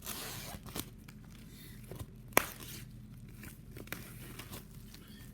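Rustling and crinkling as a vinyl record's cardboard jacket and paper sleeve are handled, strongest in the first second, with a sharp click about two and a half seconds in and a few lighter ticks.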